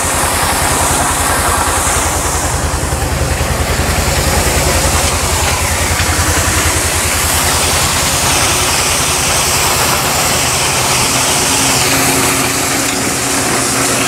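Volvo excavator's diesel engine running steadily with an even low pulsing, while gravel trickles out of its tilted bucket into a wooden form.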